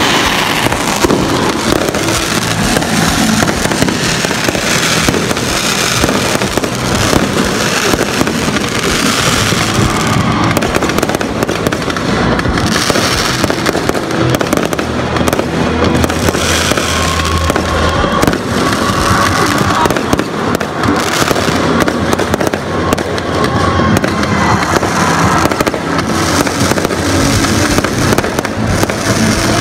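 Fireworks display going off without a pause: aerial shells bursting and crackling one after another, loud throughout.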